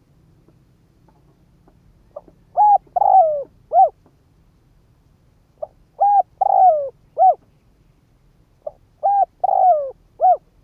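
Spotted dove cooing, three phrases about three seconds apart. Each phrase is a short soft note and then three coos, the middle one longer and falling in pitch. It is the loud advertising call of a male decoy dove, used to provoke wild doves.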